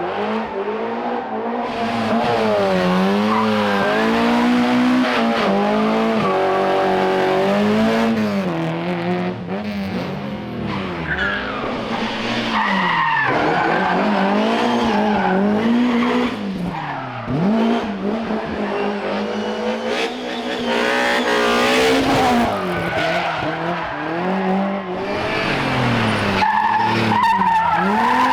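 Rally car engine being driven hard on a stage: revs repeatedly rising through the gears and dropping under braking and downshifts, with tyre squeal in places.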